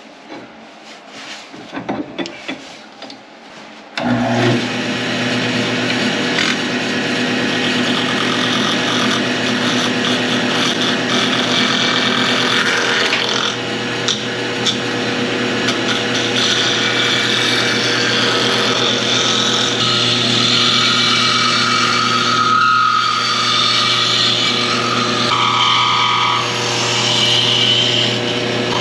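A few light knocks, then about four seconds in a wood lathe starts with a steady hum, and a skew chisel cuts a spinning walnut blank with a rough, scraping noise that shifts in pitch as the tool moves along the wood.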